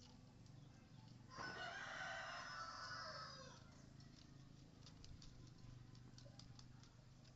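A bird calls once, starting a little over a second in and lasting about two seconds, fading at the end; faint short ticks follow over otherwise quiet background.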